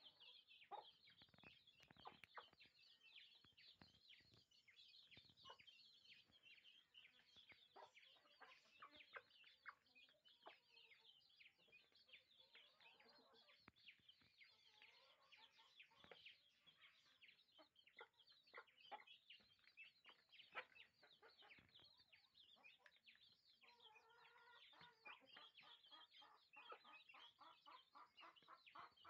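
Faint, constant peeping of a brood of young chicks pecking at greens, with soft clucks from the mother hen. About three-quarters of the way through, a lower pitched call from the hen lasts a couple of seconds.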